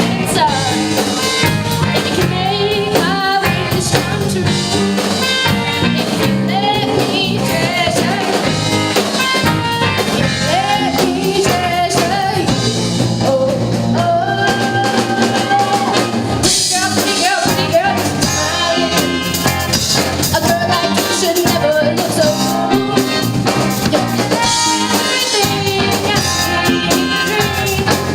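Live band performing a song, with a lead singer over the band.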